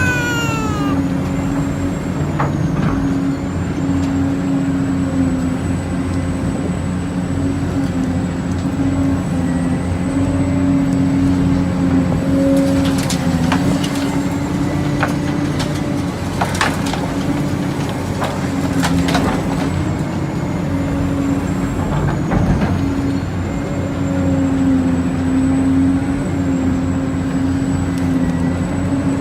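Heavy diesel construction machine engine running steadily under varying load, its pitch wavering slightly, with a few sharp metallic knocks in the middle stretch.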